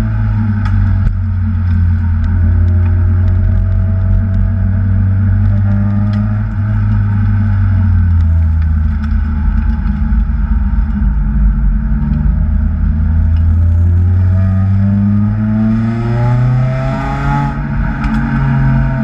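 Supercharged Acura TSX engine running hard under load, its pitch falling and rising with the revs. Near the end it climbs steadily, then drops sharply.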